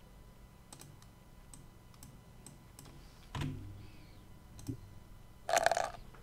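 Quiet computer keyboard typing and mouse clicks, scattered single keystrokes, with a short louder burst of noise near the end.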